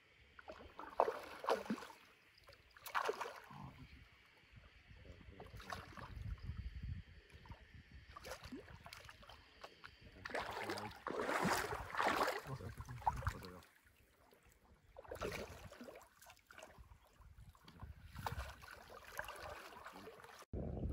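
Water splashing and sloshing in uneven bursts every two to three seconds, the longest run of splashing about halfway through.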